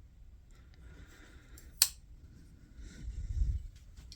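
Folding knives being handled and swapped by hand, with one sharp click about two seconds in and a soft low thump a little later.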